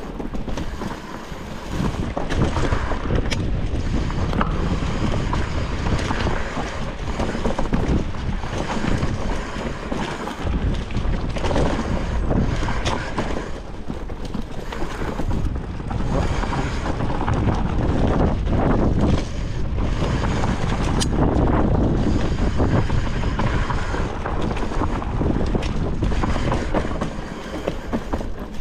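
Titanium hardtail mountain bike riding down forest singletrack, heard from a handlebar-height action camera. There is a steady rush of wind on the microphone and tyres rolling over dirt and dry leaves. Scattered sharp knocks and rattles come from the bike over bumps.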